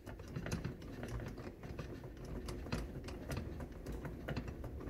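Irregular light clicks and taps, several a second, from handling a rubber-jacketed cable and clamping it in a small bench vise.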